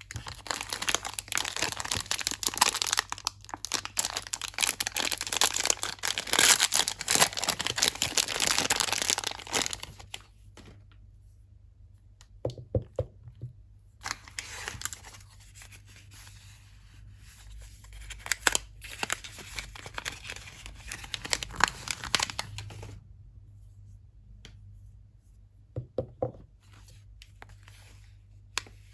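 Soap packaging being torn open and crinkled by hand. There are two long spells of tearing and rustling: the louder one in the first ten seconds, the second from about halfway to three-quarters through. A few light knocks fall in the quieter gaps.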